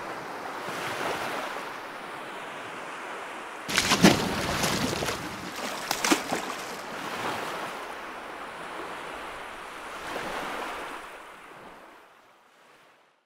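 Small sea waves washing over a shallow beach, with loud, irregular splashing of feet running through the water about four to six seconds in. The sound fades out near the end.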